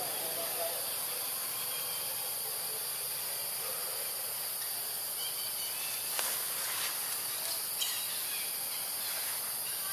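Steady high-pitched drone of insects, with a few faint short chirps and ticks between about six and eight seconds in.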